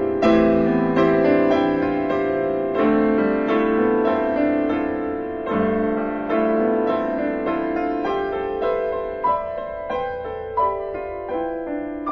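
Solo piano playing a slow, quiet piece: sustained chords struck every few seconds, thinning into single high notes as it grows softer toward the end.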